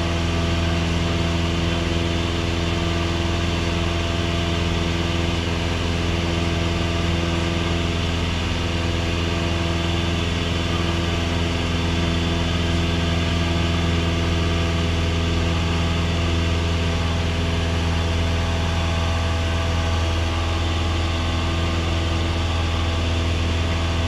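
Piston engine and propeller of a single-engine light airplane running steadily in flight, heard inside the cockpit: a deep, even hum with a stack of steady higher tones above it.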